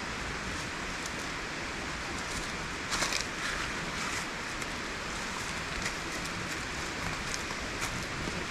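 Riverbank water flowing as a steady rush, with scattered light clicks and a short cluster of louder ones about three seconds in.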